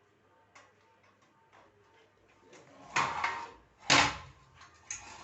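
Knocks and clatter of parts being handled while a sewing machine is put together: a few light clicks, then two loud knocks about three and four seconds in, the second the loudest, and a couple of small knocks near the end.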